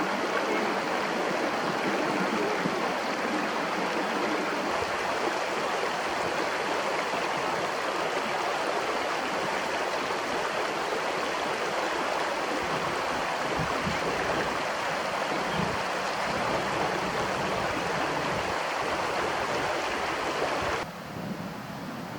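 River or stream water flowing steadily with a continuous rushing sound. It drops suddenly to a quieter level about a second before the end.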